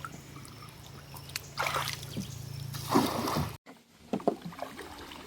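Water splashing and sloshing around a bamboo river raft, with two louder splashes about a second apart over a steady low hum. The sound cuts off suddenly, and a few faint knocks follow.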